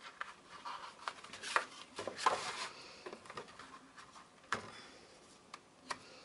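Kraft-paper envelopes and cardstock pages rustling and sliding as they are handled and pressed flat on a cutting mat, with a few soft irregular taps and brushes.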